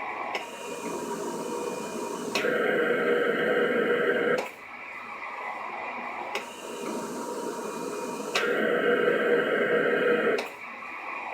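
Cough assist (mechanical insufflation-exsufflation) machine cycling through its breaths: a softer phase of rushing air, then a louder rush of air with a steady whine. Each loud phase cuts off suddenly, about two seconds after it starts. This happens twice, with a click where the machine switches phase.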